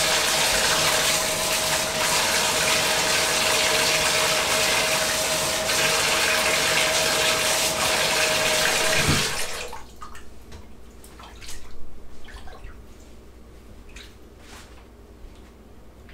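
Bathtub tap running hard into the tub, a steady rush of water with a thin steady tone in it, shut off abruptly about nine and a half seconds in. After that, only small scrapes and taps of handling in the tub.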